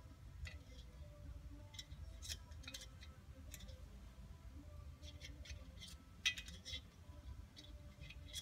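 Scattered light metallic clicks and clinks of small engine parts being handled and seated: the tappets and their guide block going into a Norton Commando cylinder block. The loudest click comes about six seconds in, over a low steady hum.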